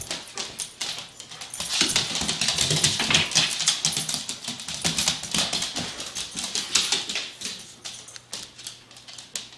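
Several dogs' claws clicking and scrabbling rapidly on a hardwood floor as they scramble and tussle; the clatter is densest through the middle and thins out near the end.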